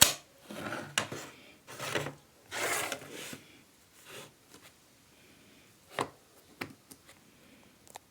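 Toy packaging being handled and opened: a sharp snap, then several rough scraping, rustling strokes, then a few lighter clicks.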